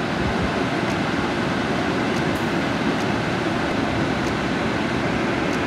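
Car air-conditioning blower running, a steady rush of air from the dashboard vents.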